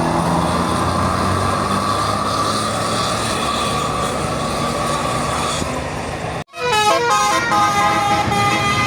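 Bus engine and traffic noise with a held horn tone. After a sudden brief cut-out about six and a half seconds in, a Basuri telolet bus horn plays a quick tune of stepped notes.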